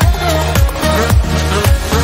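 Background music with a steady, even beat of about two strikes a second and a melody line over it.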